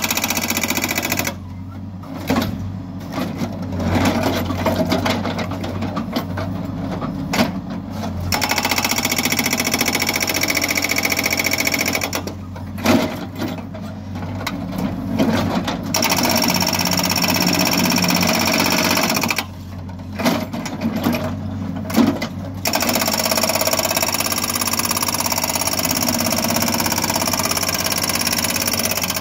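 Hydraulic rock breaker on a Hidromek backhoe loader's rear arm hammering rock in rapid blows, in bursts, with the machine's diesel engine running throughout.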